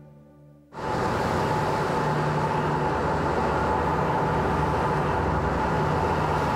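Steady noise aboard a ship under way on a choppy sea: engine drone mixed with wind and water rushing past the hull. It cuts in abruptly just under a second in and then holds level.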